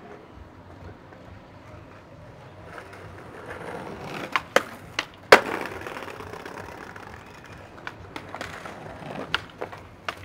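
Skateboard rolling over brick paving, with sharp clacks of the board: a couple of clicks about four and a half seconds in, then a loud hit just after, and a few lighter clicks near the end.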